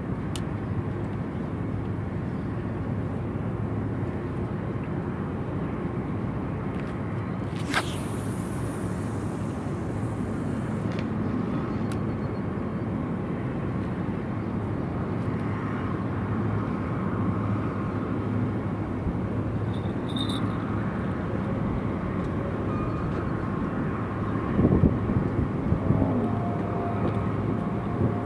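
Steady low outdoor rumble with a faint hum, like distant traffic and wind. A sharp click about eight seconds in, and a few short knocks near the end.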